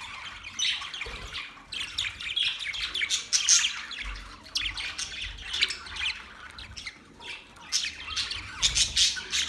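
Several budgerigars chirping, warbling and squawking, a dense run of quick high chirps with no break. Soft low thumps sound now and then beneath the calls.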